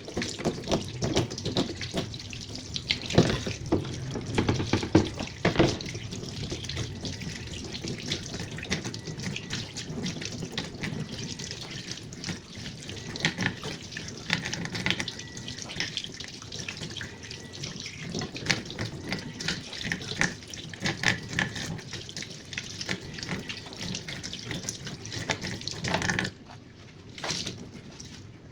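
Tap water running and splashing, with irregular knocks and rubbing as a twin-tub washing machine's water filter is rinsed and scrubbed under it. The water starts suddenly and breaks off briefly near the end.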